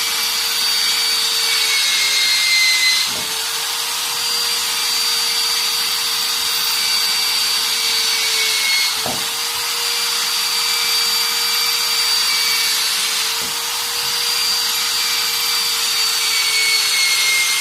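Bosch GBM 13-2 550 W electric rotary drill running at speed with a steady whine, boring holes into a brick. The whine sags and briefly breaks three times, about 3, 9 and 13 seconds in, as the bit moves from one hole to the next.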